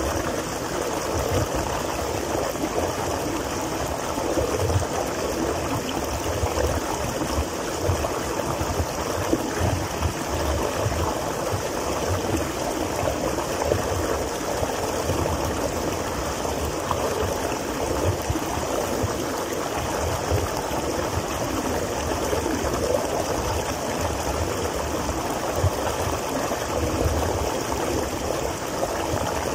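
Small waterfall splashing steadily into a rocky pool, a constant rushing and gurgling of falling water.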